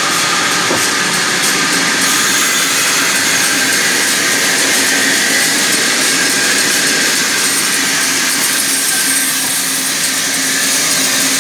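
Sawmill saw running steadily as it cuts timber: a loud, even machine noise with a faint steady hum beneath it.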